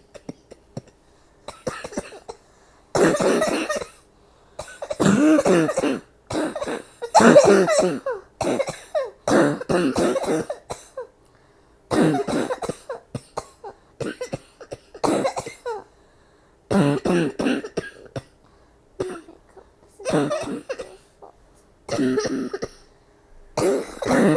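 A woman coughing hard over and over, in about ten separate fits of several coughs each, with short pauses between them. It is the cough of a bad cold.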